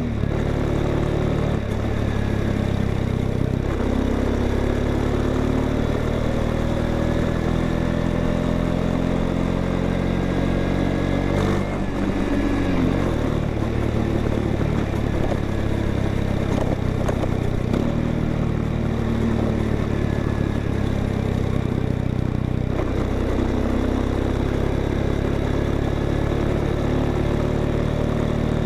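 Honda XRE 190 motorcycle's single-cylinder engine running through its stock exhaust, a steady note whose pitch drifts gently up and down with the throttle.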